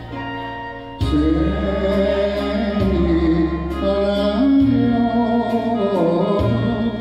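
A Japanese popular song from the 1930s, sung to instrumental accompaniment. The voice comes in about a second in, after a brief instrumental phrase, and carries a slow melody over a steady bass.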